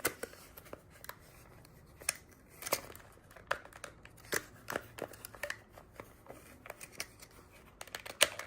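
Irregular light clicks and knocks as measuring tools and small metal parts of the tire machine are handled and positioned for a measurement.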